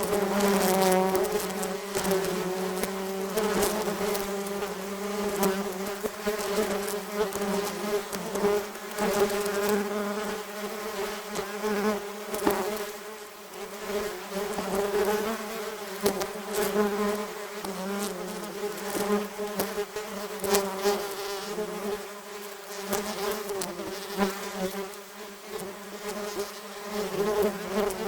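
A swarm of wasps buzzing around their nest: many overlapping wing-buzz drones whose pitch wavers as the wasps fly close and away. The swarm swells and fades in loudness, with light ticks among the buzzing.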